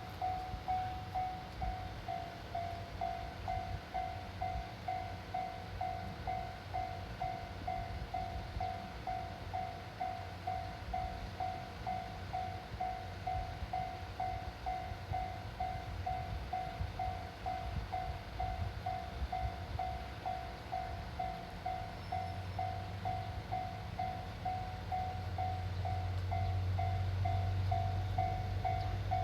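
Japanese level-crossing warning bell ringing in an evenly repeated electronic ding, just under two strokes a second. Toward the end a low rumble grows louder as a train approaches the crossing.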